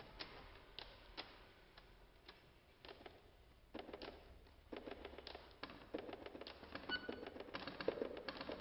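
Two chromatic button accordions played percussively: scattered clicks and taps of the keys and buttons with hardly any sustained notes, quiet at first and growing denser over the last few seconds, with a brief faint high note about seven seconds in.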